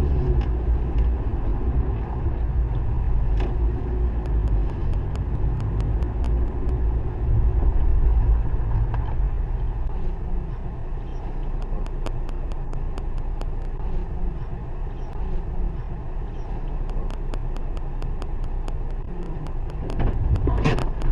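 Car engine and road noise heard from inside the cabin through a dashcam: a steady low rumble, with a run of light clicks through the middle.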